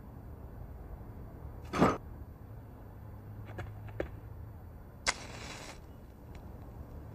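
A match struck with a sharp scrape about five seconds in, flaring with a short hiss. Before it come one louder brief scrape near two seconds and a few light clicks of small things handled on a counter, over a steady low hum.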